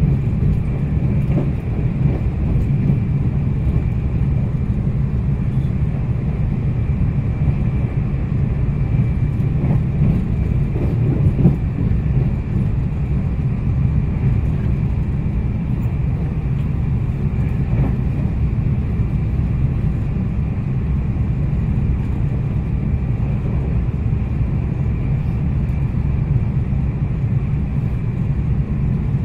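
Steady low rumble of a Meitetsu 2200-series electric train running at speed, heard inside the passenger cabin, with a faint steady high whine on top.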